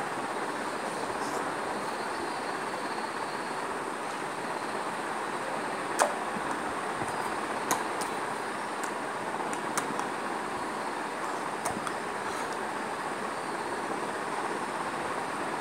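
Steady rushing background noise with a faint high whine, broken by a few short sharp clicks; the loudest click comes about six seconds in.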